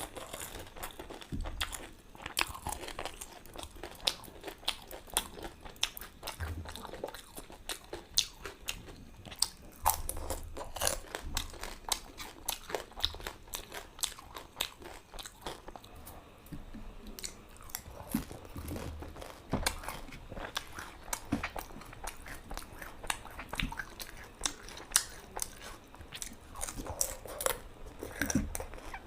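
Close eating sounds of pani puri: the crisp puri shells crunching and crackling between the teeth, with chewing.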